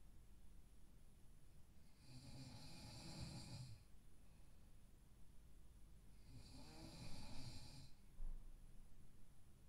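A sleeping man snoring: two long, rasping snores a few seconds apart, the first about two seconds in and the second just past six seconds.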